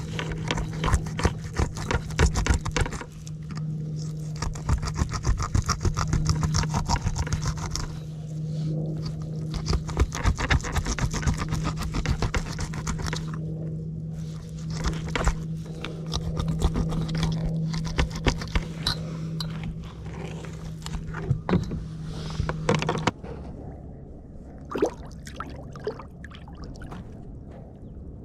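Bixpy electric kayak motor humming steadily, then shutting off about three-quarters of the way through. Scrapes, clicks and knocks of gear being handled on the kayak run throughout.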